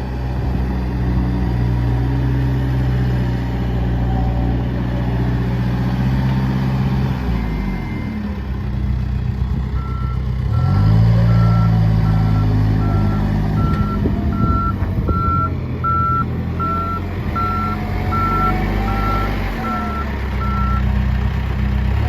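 2010 Case 580 Super M backhoe's turbo diesel running, its revs dropping off and then climbing again about halfway through. As the revs come back up, the reverse alarm starts beeping in a steady even series, a bit over once a second, while the machine backs up.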